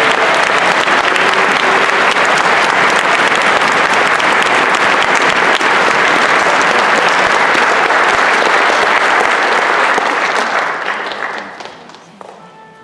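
Audience applauding steadily in an auditorium, dying away about eleven seconds in. As it fades, a single held note begins.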